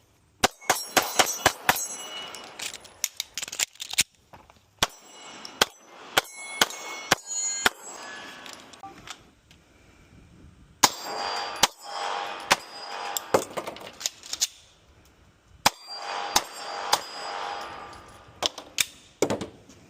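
Several rapid strings of gunshots, each a quick run of sharp cracks with short pauses between the strings, some shots followed by a brief metallic ring.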